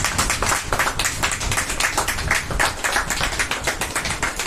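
A small group of people clapping, with quick, uneven hand claps that run together.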